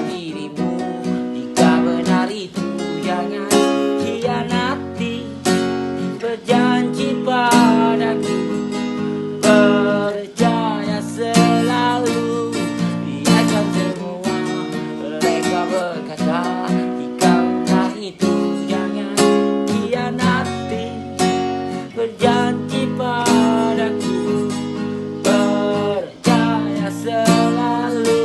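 Acoustic guitar strummed in a steady rhythm, with a picked melody line moving over the chords: an instrumental break in the song.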